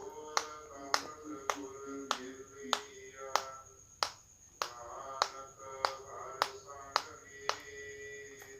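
Background music with a steady finger-snap beat, a little under two snaps a second, over sustained tones.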